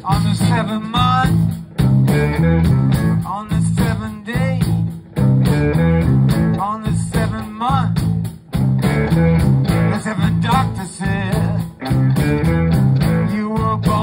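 Live electric blues band playing: electric guitars, bass guitar and drums, with a lead guitar bending notes over a riff that stops and restarts every couple of seconds.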